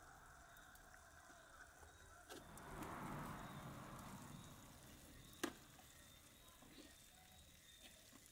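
Near silence, with a soft rustle about three seconds in and a single sharp click or tap a little past halfway.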